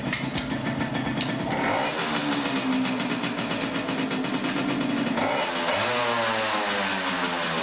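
Freshly reassembled Gilera supermoto's two-stroke single-cylinder engine idling steadily, revved up once about five seconds in, the pitch rising and then settling back to idle.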